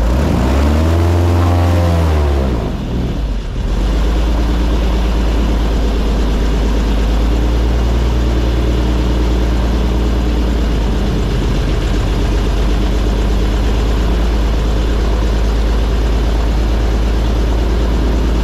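Airboat engine and propeller revving up and back down over the first few seconds, then running steadily with a loud low drone as the boat cruises.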